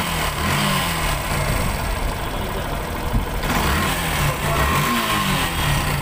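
Yamaha FZ-S Fi V2's single-cylinder, air-cooled engine running, its pitch drifting up and down a little.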